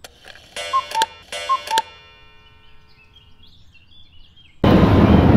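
A cuckoo-clock call, "cuck-oo" twice, each a higher note stepping down to a lower one and ringing on briefly. Near the end a loud, steady noise cuts in suddenly.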